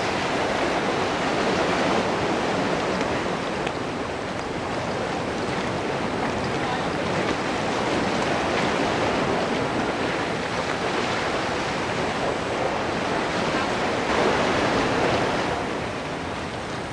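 Sea water surging and washing against a rock wall, a steady rushing noise with some wind on the microphone, swelling a little near the end.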